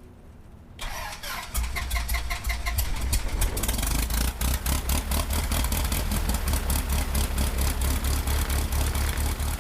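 Light aircraft piston engine being started: a brief crank about a second in, then the engine catches and settles into a steady run with even, rapid firing pulses.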